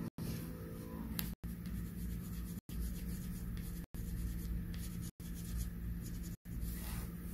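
Pencil scratching on paper while colouring, over a steady low hum. The sound drops out briefly about every second and a quarter.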